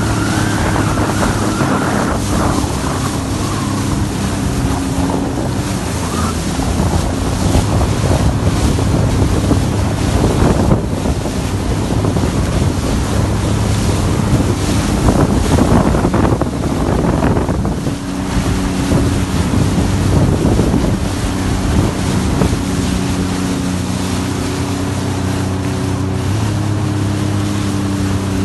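Sea-Doo jet ski engine running at a steady pitch, with wind buffeting the microphone and water rushing past the hull. For a stretch in the middle, wind and splashing noise rise over the engine, which comes through clearly again near the end.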